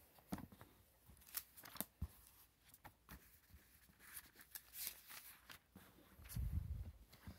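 Faint rustling and flicking of thin Bible pages being leafed through by hand to look up a verse. A soft, low handling rumble comes near the end.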